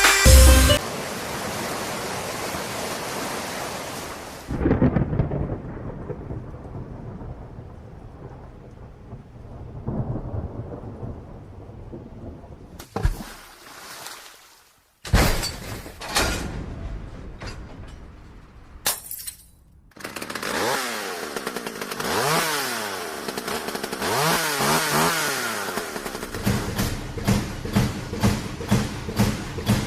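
A string of sound effects edited together with several abrupt cuts. The first part is a long stretch of rain-like noise with low rumbles; later come sounds that sweep up and down in pitch, then quick repeated bursts near the end.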